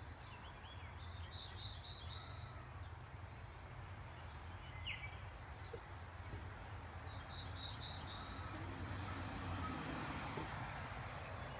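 Bird calling in quick series of short, high chirps, several times, over a steady low background hum.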